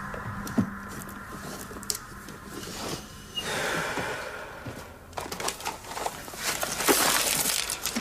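Close handling sounds of objects being rummaged through: paper or card rustling about three and a half seconds in, then a run of light clicks and knocks with a louder rustle near the end.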